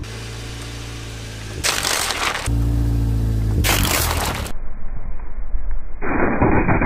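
A Coca-Cola bottle loaded with Mentos bursting under a car tyre, with sudden loud hissing spurts of cola about one and a half and three and a half seconds in. Dense crackling follows near the end, over a steady low hum.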